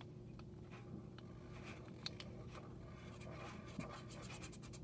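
Marker drawing on a paper fortune teller: faint scratching strokes, quickening into a rapid run of short strokes near the end.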